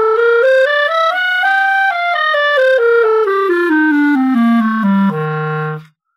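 Clarinet played with flutter-tonguing (rolled R's) through a quick scale: it steps up to a top note about two seconds in, then runs back down to a low note that is held briefly and stops just before the end.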